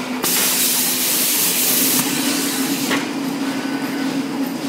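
Compressed air hissing from a pneumatic sealing and welding machine: a loud burst that starts suddenly about a quarter second in and cuts off just before the three-second mark, over the machine's steady running hum.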